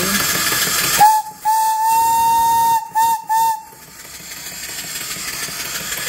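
Antique steam whistle on a vertical steam boiler blown four times: a short toot, a long blast, then two quick short toots, one steady clear tone. A steady hiss of steam runs before and after the blasts.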